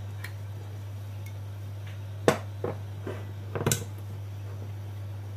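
A few short knocks and clatters of sauce bottles being handled on a kitchen counter, the first the loudest, over a steady low hum.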